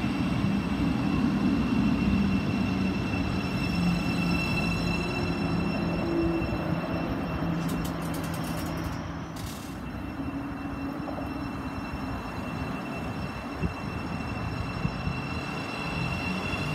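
Thameslink Class 700 electric multiple unit running alongside the platform: a steady rumble with a constant high whine from its electric equipment. A few brief clicks sound about halfway through.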